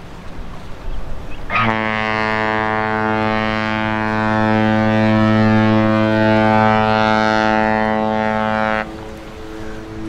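Cruise ship's horn sounding one long, deep blast of about seven seconds. It starts sharply about a second and a half in and cuts off suddenly near the end.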